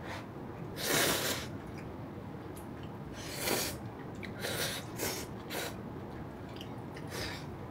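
A person's breath, sharp and close to the microphone: about six short rushes of air through the nose, the loudest about a second in.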